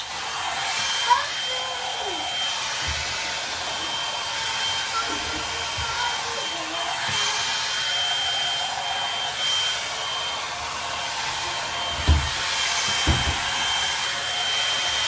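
Hot-air blow-dry brush running steadily while drying hair: a continuous rush of air with a thin, steady high whine from its motor. A couple of dull low thumps near the end.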